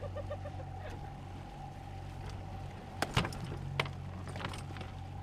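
Boat engine running with a steady hum, and two sharp knocks about three seconds in, under a second apart: a fish bat striking a freshly landed wahoo on the deck.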